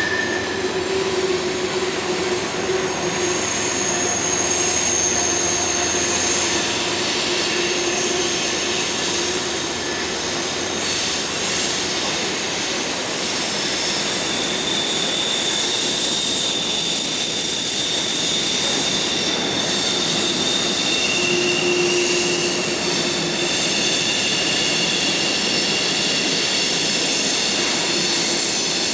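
Freight cars of a passing train rolling on steel rails: a steady rumble of wheels and cars, with high-pitched wheel squeal that shifts in pitch and comes and goes.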